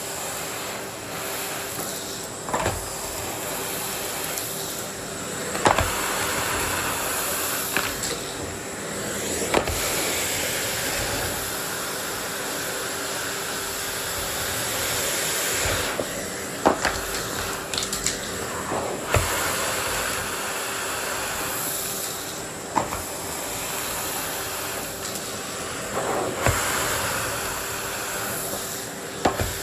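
Miele vacuum cleaner running steadily, a rushing suction noise over a steady hum that swells and eases as the nozzle is pushed back and forth. Sharp knocks of the nozzle against the floor and furniture come about ten times.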